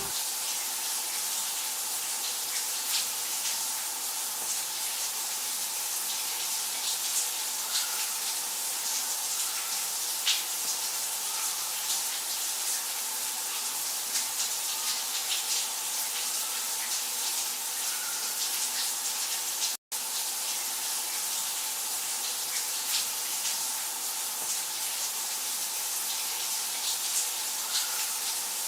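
Water running steadily from a tap, with faint scattered clicks. The sound cuts out for an instant a little past two-thirds of the way through.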